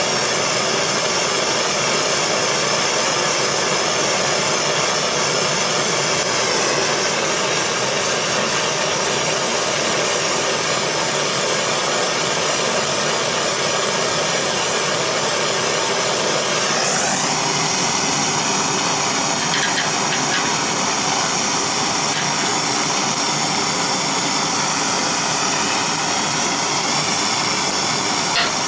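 Handheld gas blowtorch burning steadily, its flame played on the bicycle hub to heat the ring inside it. The steady hiss changes note about two-thirds of the way through.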